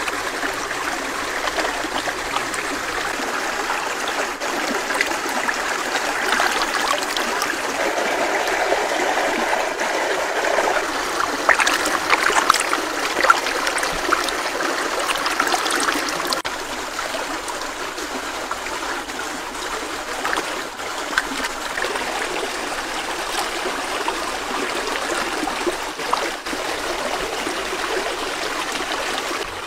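Shallow stream water running and trickling over rocks, steady throughout. Hands splash in the water while washing a squid, loudest around the middle.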